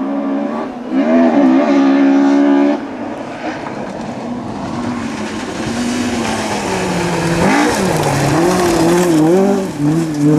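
Rally car engine revving hard on a special stage, its pitch rising and falling with gear changes and throttle lifts. It is loudest about a second in, and again near the end as the revs climb.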